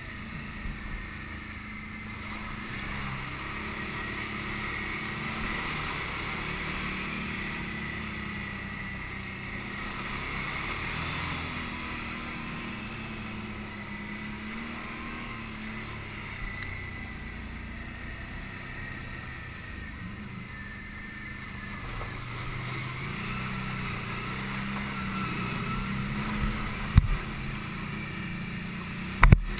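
Can-Am Outlander ATV engine running steadily at trail speed, its pitch drifting slightly up and down. A few sharp knocks come near the end.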